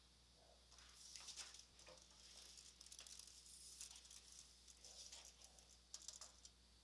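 Faint, irregular light rustling strokes and small clicks from hand work on the wood, with quiet spells between.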